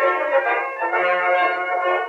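Background instrumental music with held, sustained notes.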